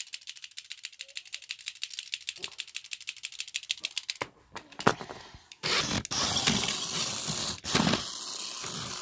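Toy battle robots clicking fast and evenly, about eleven clicks a second, for the first four seconds. From about five and a half seconds in, a louder rough noise with scrapes takes over.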